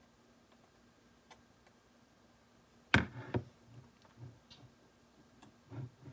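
Metal hand scaler clicking and tapping against the plastic teeth of a typodont during scaling strokes: a few faint ticks, then two sharp clicks about three seconds in, followed by lighter taps.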